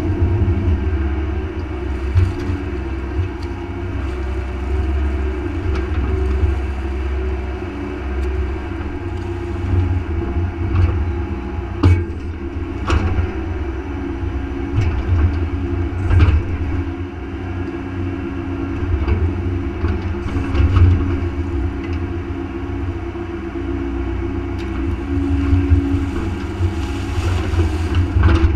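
Mini excavator's diesel engine running under hydraulic load as the boom and arm move, a steady low rumble with a few sharp clanks from the bucket and linkage partway through.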